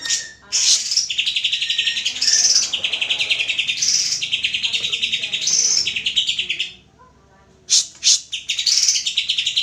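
Greater green leafbird (cucak ijo) singing: long runs of fast chattering trills in phrases. About seven seconds in it pauses briefly, gives a few sharp notes, then goes back to trilling.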